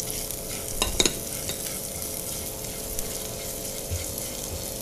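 Finely chopped garlic and cumin seeds sizzling steadily in hot oil in a nonstick frying pan while a spatula stirs them, with a couple of sharp clicks of the spatula against the pan about a second in. The garlic is being fried on medium flame until lightly browned.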